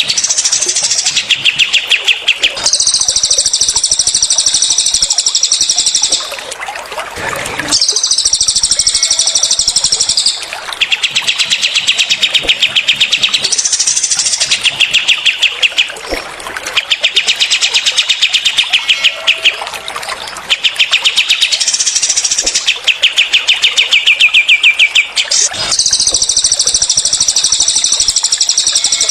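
Recorded songs of cililin and kapas tembak songbirds in rapid-fire 'tembakan' phrases. Runs of fast, evenly repeated notes alternate with higher, denser phrases, each lasting a few seconds, with short pauses between them.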